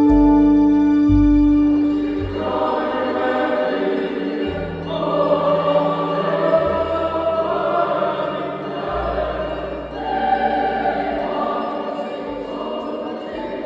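Choir singing a Christmas piece over an instrumental accompaniment with held low bass notes. The opening couple of seconds are held instrumental tones before the voices come in.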